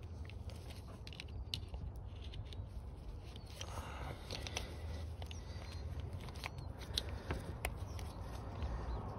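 Scattered small clicks and scrapes of a flat screwdriver and gloved hands working parts onto a clutch master cylinder, over a low steady rumble.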